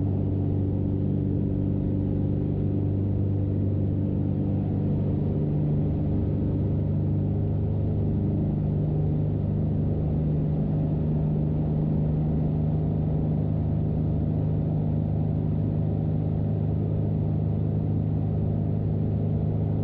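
Corvair air-cooled flat-six aircraft engine and propeller running steadily at full takeoff power, heard from the cockpit during the takeoff roll and lift-off.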